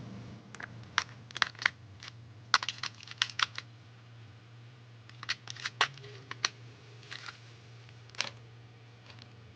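Small hard objects, most likely lock hardware, clicking and clacking as they are handled and set down, in two quick clusters and then one more click near the end, over a low steady hum.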